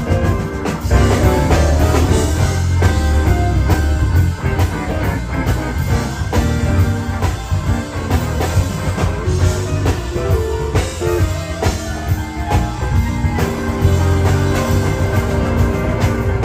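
Live blues band playing an instrumental passage: electric guitar over a strong bass line and a steady drum beat, with no singing. The music breaks off sharply at the very end.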